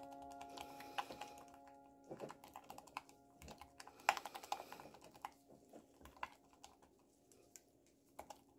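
Silicone spatula stirring thick cream in a glass beaker: faint, irregular clicks and scrapes of the spatula against the glass, busiest around the middle.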